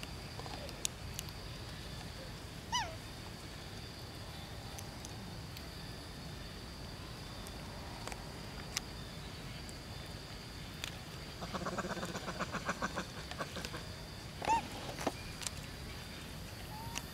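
Outdoor background with a faint steady high hum, broken by short animal calls: a squeak falling in pitch about three seconds in, a fast chattering run of pulses around the middle, and another falling squeak a couple of seconds later.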